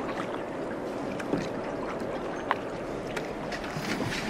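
River water rushing and lapping around a drift boat's hull: a steady wash of water noise with a few faint ticks and small splashes.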